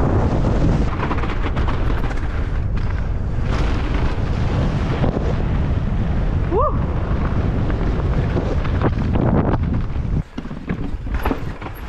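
Wind buffeting the microphone of a mountain bike speeding down a trail, with the bike rattling and knocking over rough ground. There is a short rising squeal just past halfway, and the rush drops off sharply about ten seconds in.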